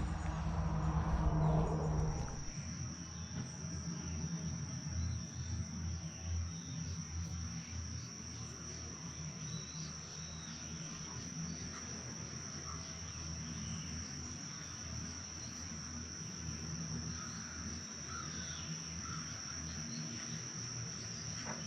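Steady high-pitched insect chorus, one unbroken trill, with a low rumble in the first couple of seconds.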